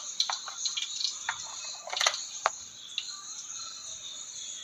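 Mustard seeds starting to crackle in hot coconut oil in a steel pan: scattered sharp pops, thinning out after about three seconds. Crickets chirp steadily behind.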